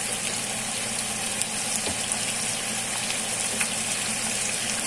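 Chicken pieces coated in soy and oyster sauce sizzling in a hot, oily wok: a steady sizzle with occasional small crackles, over a low steady hum.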